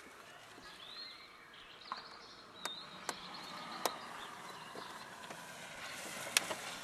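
Quiet outdoor ambience with a small bird chirping a few times in the first half, and a few sharp clicks, the loudest near the end.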